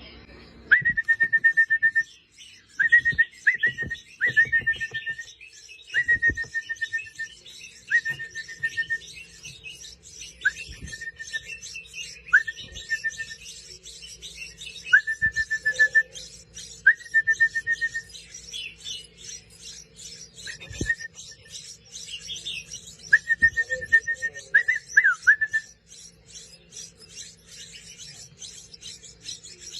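Young wild birds calling while being hand-fed: about a dozen loud, clear, high notes, each starting sharply and held for about a second, over a steady run of faint, rapid high cheeping.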